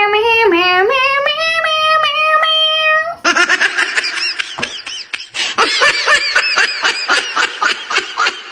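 A high voice holds long, rising sung notes for about three seconds, then breaks into rapid, high-pitched laughter.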